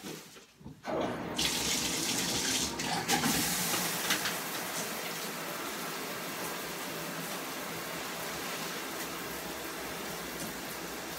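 Bathroom sink tap turned on about a second in, then water running steadily into the basin.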